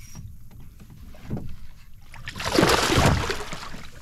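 A large hooked fish thrashing at the surface beside a small boat, with a small splash about a second in and one loud splash lasting about a second from about two and a half seconds in.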